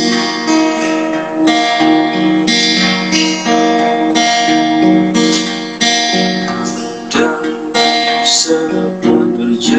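Acoustic guitar strumming chords, the instrumental intro before the singing of a song.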